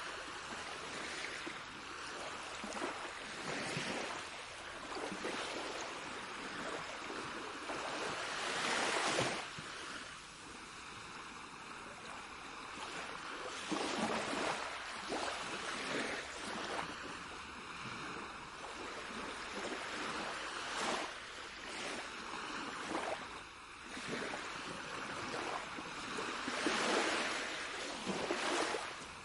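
Ocean waves washing onto a shore, a steady hiss of surf that swells into louder breaking surges every few seconds.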